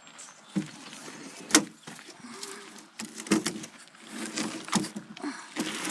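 Knocks and bumps from wooden window frames and boards being handled and shifted, with a few sharp knocks among scraping and clattering.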